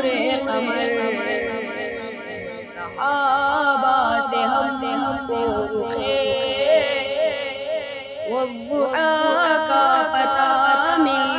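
Urdu devotional song (naat) singing: layered voices holding long, wavering notes, with new phrases coming in about three seconds in and again near nine seconds.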